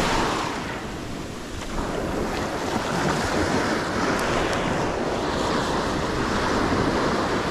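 Small surf breaking and washing up the beach at close range, a steady rushing wash, with wind buffeting the microphone.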